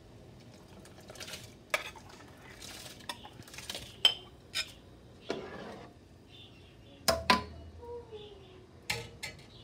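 Stainless steel slotted spatula scraping and clinking against a ceramic bowl as soaked basmati rice is pushed off it into a pot of boiling water: a run of sharp clinks, several to a few seconds apart, with short scraping rushes in between.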